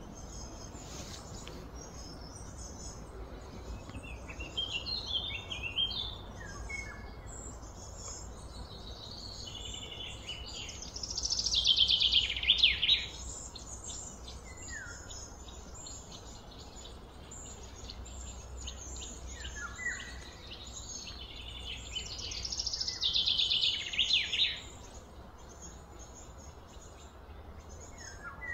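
Birds singing and chirping, with two louder bursts of rapid high song, about eleven seconds in and again around twenty-three seconds, over a steady low background rumble.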